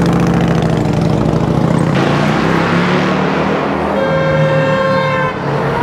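A cruiser motorcycle's engine running alongside, with even wind rush building from about two seconds in as the electric dirt bike moves off. A steady electric-motor whine comes in at about four seconds and lasts just over a second.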